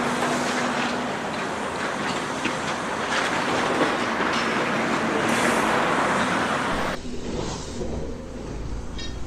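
Demolition machinery working on a building, with a dense clatter and crunching of breaking debris that cuts off abruptly about seven seconds in, leaving a lower machine rumble.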